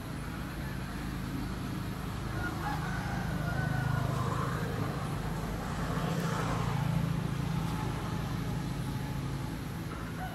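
Steady low engine hum that swells louder twice.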